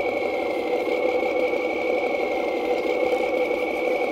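Electric drivetrain of an RC CROSS KrAZ-260 6x6 scale truck running steadily at low speed: a constant motor and gear whine with little change in pitch.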